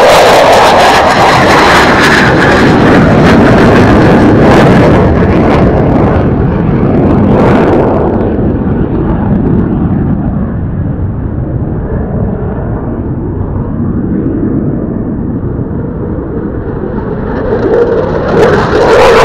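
F-15J Eagle fighter jet engines: loud jet noise from one jet climbing away, losing its hiss over the first eight seconds or so and fading to a low distant rumble. Near the end a second F-15's jet noise rises sharply as it approaches.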